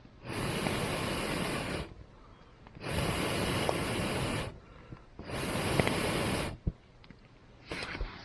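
Three long hissing blows of air onto a campfire, each about a second and a half, with short pauses between like breaths, followed by a sharp knock and a few small crackles near the end.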